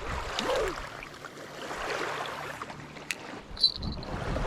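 Lakeshore water lapping with wind on the microphone, a small click about three seconds in and a short high chirp just after.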